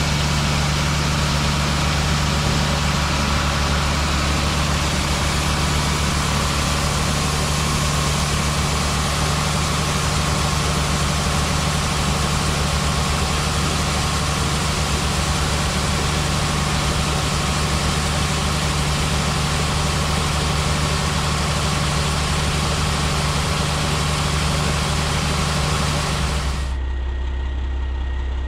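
Shelled corn pouring from a grain cart auger spout into a dump truck box: a steady rushing hiss of kernels, with an engine running steadily underneath. Near the end the corn flow stops abruptly, leaving only the engine hum.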